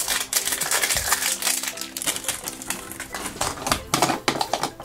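Plastic wrapping and a plastic cup crinkling and clicking as they are peeled and handled, with a quiet music bed under it.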